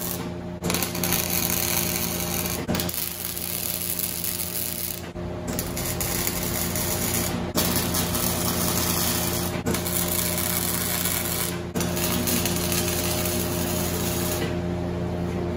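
Electric welding arc crackling and buzzing as steel mounting bars are tack-welded across a pickup's frame rails. It comes in short stretches, with abrupt breaks every two seconds or so.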